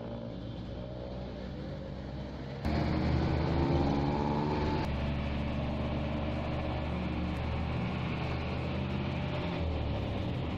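Jeepney's diesel engine running under way, heard from inside at the open rear with road noise. The engine note rises and falls, and jumps louder about two and a half seconds in.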